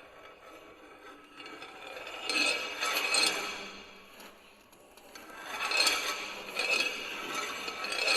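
Contemporary chamber quartet of alto flute, alto saxophone, piano and percussion playing noisy, breathy extended-technique sounds with a scraping quality, swelling twice to loud peaks, about two and a half seconds in and again about six seconds in.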